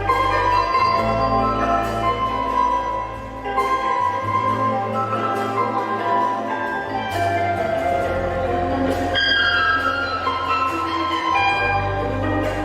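Instrumental band music: sasando, the Rote palm-leaf tube zither, plays the plucked melody over guitar, bass guitar and drums. The deep bass falls away about four seconds in and returns near the end.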